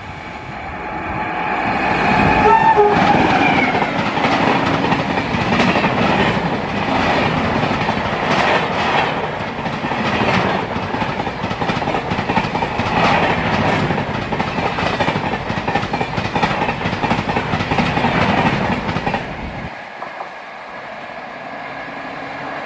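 An electric locomotive's horn sounds as the express approaches, and its pitch drops as it passes. Then the passenger coaches run past at speed with a continuous clickety-clack of wheels over the rail joints for about sixteen seconds. This cuts off sharply about twenty seconds in as the last coach goes by.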